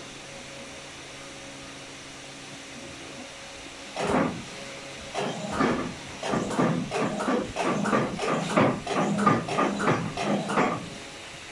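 Cloth rag rubbed in quick back-and-forth strokes over the rubber blanket cylinder of a Heidelberg MO-S offset press, a scrubbing swish about three times a second, starting about four seconds in and stopping near the end. Before it, only a steady low hum.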